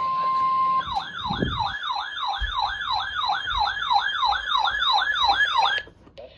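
Weather radio tornado-warning alert: a steady warning tone near 1 kHz ends about a second in and gives way to a fast electronic yelp, rising and falling about three times a second, which cuts off suddenly near the end.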